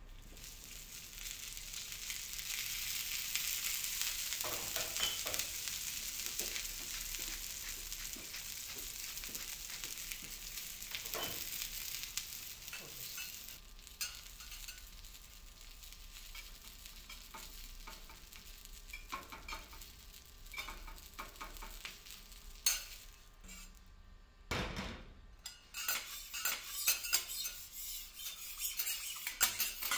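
Food sizzling on a teppanyaki griddle, the sizzle swelling over the first few seconds and dying away after about twenty seconds, with metal spatulas scraping and tapping on the hot plate. Near the end comes a quick run of spatula clicks and taps.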